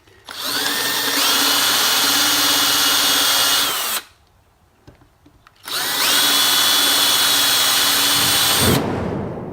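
Power drill turning a countersink bit, cutting countersinks in wood: two runs of about three and a half seconds each, the motor whine rising as it spins up and dying away when it stops.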